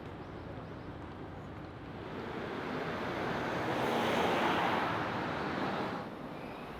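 A vehicle passing by over steady city street noise: a rushing sound that builds about two seconds in, peaks in the middle and falls away fairly quickly about a second before the end.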